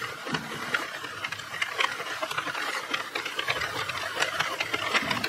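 Sentro circular knitting machine being hand-cranked, its plastic needles clicking and rattling rapidly and continuously as they pass the yarn carrier.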